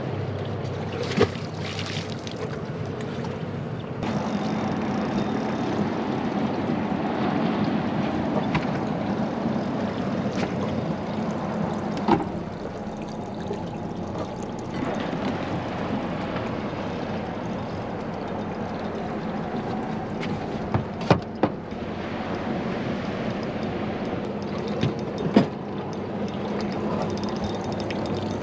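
Steady rumble of wind and water aboard a small open boat, a little louder from about four seconds in. A few short, sharp knocks come through it, the loudest about two thirds of the way through and again near the end.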